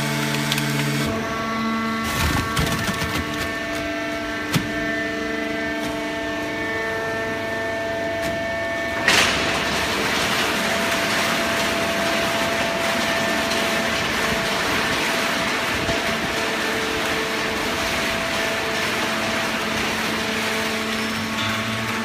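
A horizontal hydraulic baler running, with a steady machine hum made of several tones. A few knocks come in the first seconds, then one sharp bang about nine seconds in, after which a louder, rougher noise carries on under the hum.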